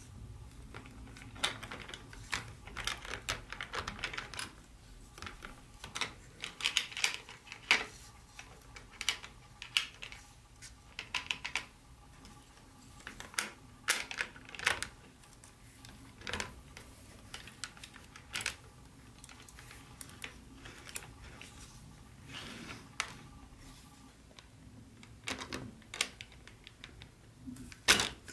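Irregular light clicks and taps of small hard parts being handled, in quick clusters with short pauses between them.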